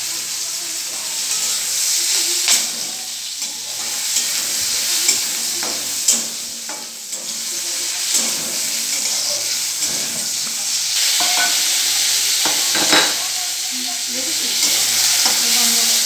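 Vegetables sizzling in hot oil in a steel wok while a metal spatula stirs them, with a steady hiss and the spatula now and then knocking and scraping against the pan.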